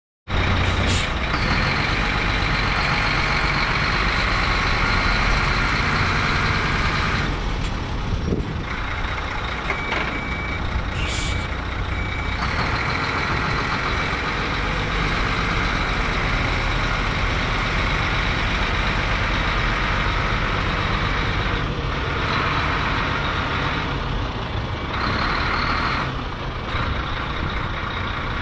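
Diesel engine of a DAF LF75.360 dump truck running steadily as the truck moves slowly across the yard, with a short hiss of air about eleven seconds in.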